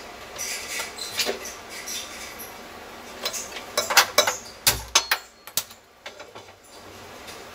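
A non-stick kadai being handled on a gas stove's burner grate: a run of sharp clicks and knocks, with a dull thump about five seconds in as the pan is shifted.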